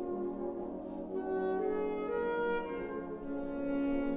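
A symphonic wind band playing long held chords, moving to new notes every second or so.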